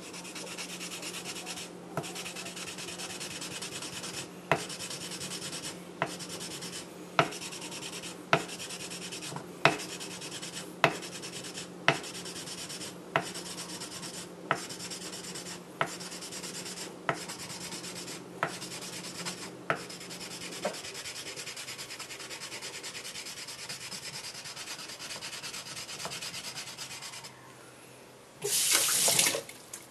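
Wooden block rubbed back and forth along a steel kitchen-knife blade with wet emery powder paste, a steady gritty rubbing that polishes out rust and scratches to bring back the whetstone-mark finish. For the first two-thirds a sharp tick comes about once a second. The rubbing stops a few seconds before the end, and a short loud burst of noise follows.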